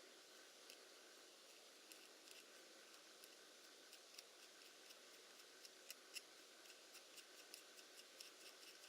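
Faint, irregular light clicks and ticks, a few a second, with no motor running.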